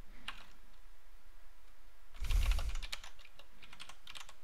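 Typing on a computer keyboard: a quick run of keystrokes about two seconds in, lasting about a second.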